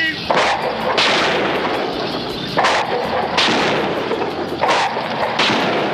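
Cartoon sound effect of a heavy pile driver pounding posts: about six sudden crashing blows at uneven spacing, each fading out over under a second.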